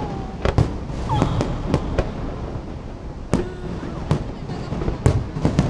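Fireworks display: aerial shells bursting in an irregular series of sharp bangs, about ten of them.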